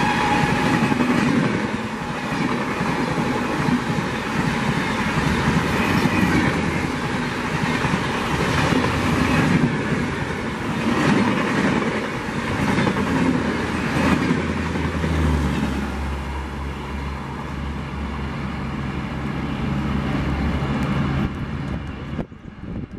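Express train passing at speed close by, coaches rushing past with wheels clattering over rail joints. A horn fades out in the first second, and a low steady engine drone joins about two-thirds of the way through. The sound cuts off abruptly near the end.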